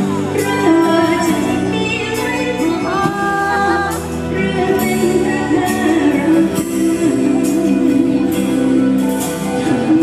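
Live band performance of a Thai luk thung song, with a woman singing into a microphone over the band's steady beat and sustained melody lines.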